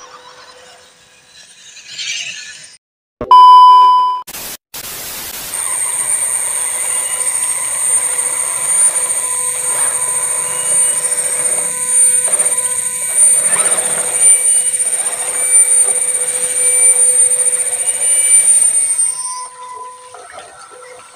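A loud electronic beep or chime about three seconds in, from the on-screen subscribe-button sound effect. From about five seconds in until near the end, a steady high-pitched whine with a constant lower hum, from scale RC crawlers' electric motors and geared drivetrains driving through mud.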